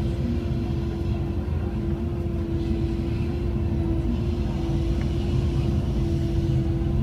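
Cat 312E excavator's diesel engine and hydraulics running steadily under working load, heard from inside the cab: a low rumble with a steady, even tone on top.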